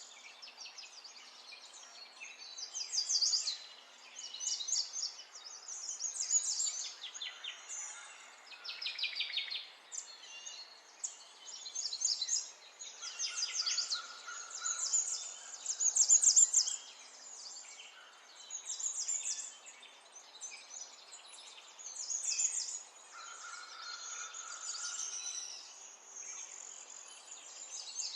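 Songbirds singing and chirping: a continuous run of short high phrases and fast trills, with a steadier whistled note twice.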